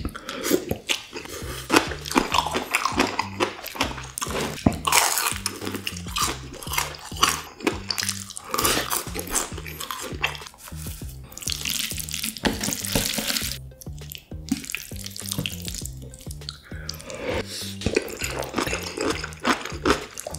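Jajangmyeon noodles being slurped and chewed close to the microphone: wet sucking slurps and mouth noises, with a long slurp about twelve seconds in, over background music with a low bass line.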